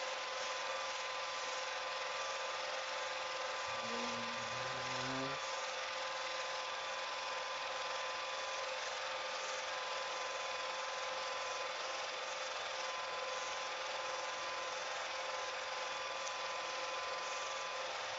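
Home-movie film projector running: a steady mechanical whirr with a few constant tones over it.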